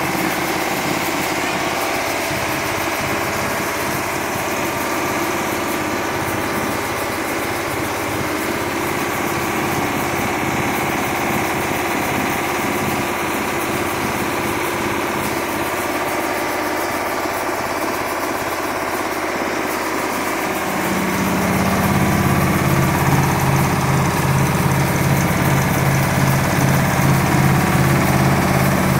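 Rice-milling machinery running: a loud, steady mechanical din. About two-thirds of the way through a deeper, pulsing hum comes in and the noise grows louder.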